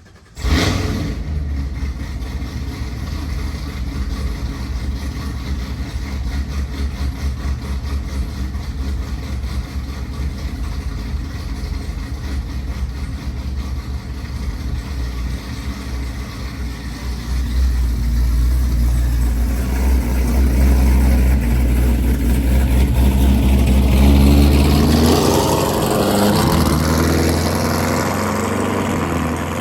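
Chevrolet Camaro ZL1's supercharged V8 running as the car is driven, coming in suddenly just after the start with a deep, steady rumble. It grows louder about two-thirds of the way through, and the revs climb near the end.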